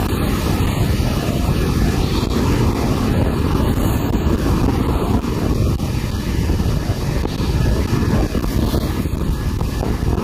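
Band sawmill cutting lengthwise through a siris log: the saw and its motor run as a loud, steady low drone throughout, without a break.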